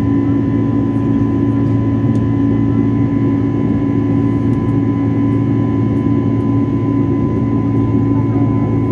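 Cabin sound of an Airbus A320neo's turbofan engines in the climb after takeoff, heard from a window seat near the engine: a steady, unchanging drone with a thin whine held above it.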